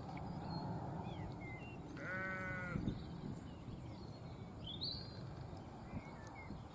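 A sheep bleats once about two seconds in, a single wavering call of under a second, with a few short bird chirps around it.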